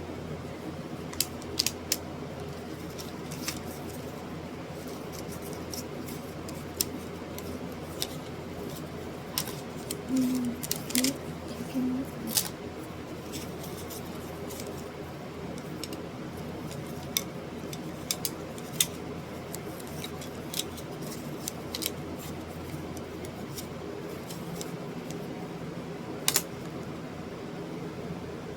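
A steady low hum with scattered sharp clicks and taps over it, which bunch together about ten to twelve seconds in.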